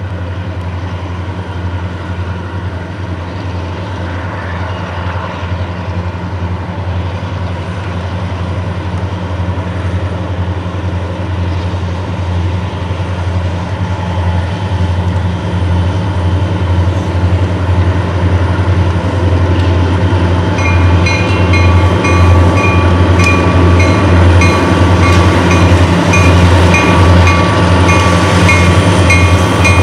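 Six diesel locomotives working together, a deep steady engine drone with rail noise that grows louder as the train approaches. About twenty seconds in, a bell starts ringing steadily, a little over one strike a second.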